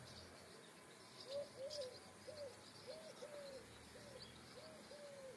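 Faint, repeated low cooing of a bird: a run of short coos that rise and fall, mostly in pairs, starting about a second in.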